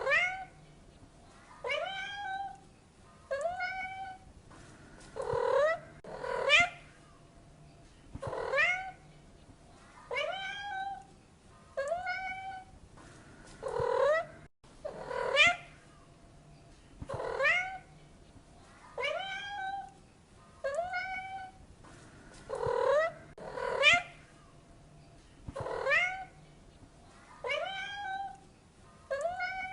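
Domestic cat meowing again and again, short calls every one to two seconds, some of them rising sharply in pitch.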